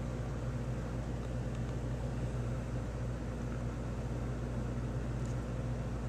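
Steady rushing noise of a strong wind storm with rain, over a constant low hum.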